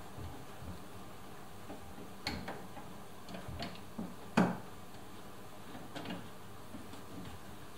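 A handful of scattered metallic clicks and knocks from hands and tools working inside a Toyota RAV4's front door cavity while a new window-regulator motor is fitted. The loudest knock comes about four and a half seconds in.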